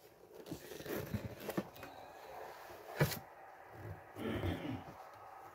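Handling noise of a cardboard box: a few light knocks and taps, the sharpest about three seconds in, then a soft rustle of the box and its paper lining near the end.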